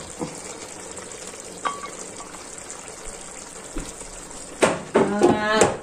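Meat tajine with prunes and potatoes simmering in a sauté pan on the stove: a steady sizzling hiss. Near the end, a person's voice is heard briefly.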